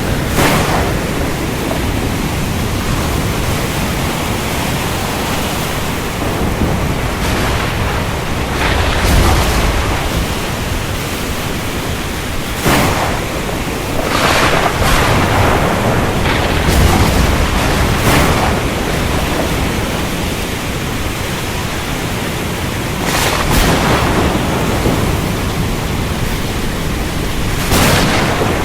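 Thunderstorm: steady, heavy rain hiss with thunder. Low rumbles swell about a third and again about two-thirds of the way in, and brief sharp cracks break through every few seconds.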